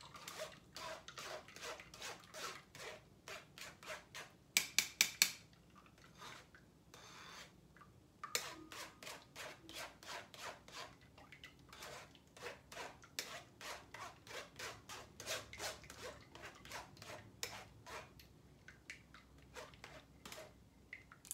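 Spoon scraping and pressing cucumber pulp against a fine mesh strainer to force the juice through, in steady strokes about two a second. A short, louder flurry of strokes comes about four and a half seconds in.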